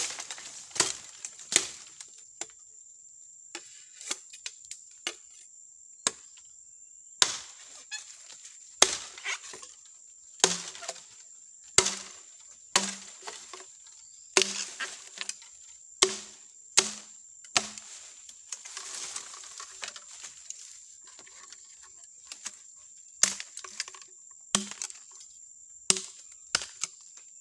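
Machete chopping a green bamboo stem: sharp, irregular strikes about once a second, some with a short hollow ring. A steady high insect drone runs behind them.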